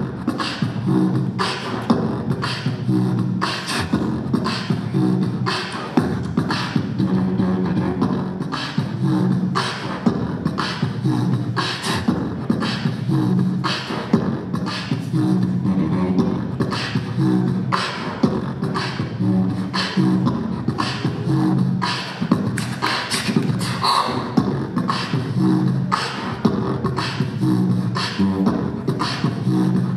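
Live beatboxing into handheld microphones: a steady hip-hop beat of mouth-made kicks and snares, with a hummed bass line under it.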